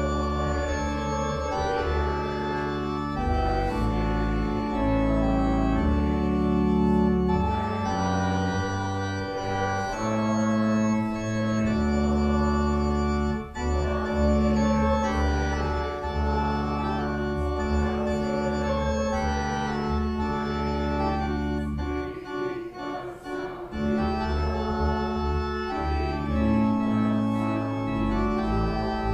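Church organ playing, with sustained chords over deep bass notes that change every second or two.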